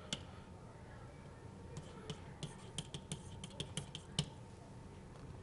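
A stylus tapping on a pen tablet while handwriting: one click, then a quick run of about a dozen light, sharp clicks over two seconds, the last one the loudest.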